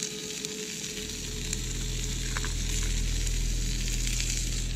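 Burger patties sizzling in a frying pan over an open wood fire, a steady hiss with small crackles. A low steady hum comes in about a second in.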